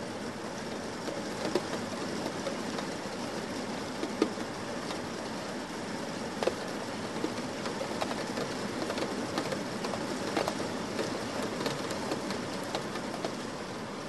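Steady rain falling, a constant hiss with scattered sharp drop strikes.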